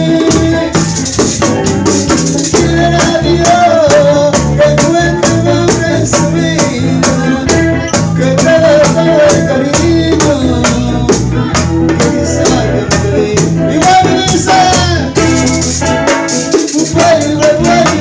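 Live bachata band playing: a metal güira scraping in a steady rhythm over bongó, guitars and bass, with a wavering lead melody on top.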